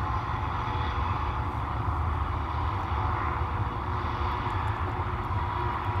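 Steady low background rumble with no distinct events.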